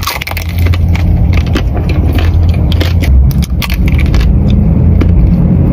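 Close-miked biting and chewing of a soft dessert: many small wet crackly mouth clicks over a steady low rumble.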